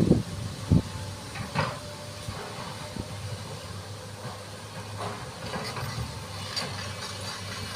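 Excavator diesel engine running steadily, with a few short knocks and clanks along the way.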